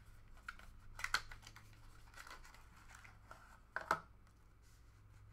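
Trading card packaging being handled: soft rustling of cardboard and paper with a few sharp taps, the loudest about a second in and just before four seconds in.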